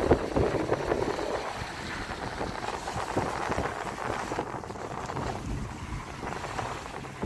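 Wind rushing over the microphone with the road noise of a moving car, a little louder in the first second or so.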